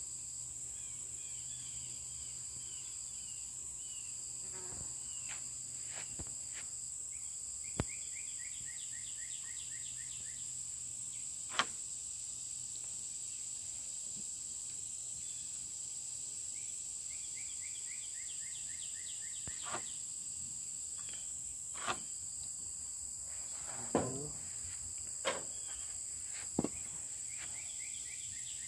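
Insects droning steadily at a high pitch, with a run of quick repeated chirps a few times. Scattered sharp knocks, the loudest about halfway through and near the end, stand out above the drone.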